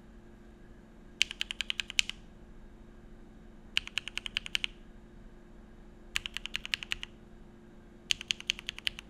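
Mechanical keyboard with lubed Opblack linear switches on an aluminum plate (Geonworks Frog, CRP keycaps) being typed on in four quick bursts of about nine keystrokes each, with short pauses between them.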